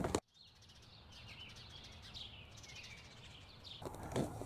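Several small birds chirping faintly over a quiet outdoor background, with a short knock near the end.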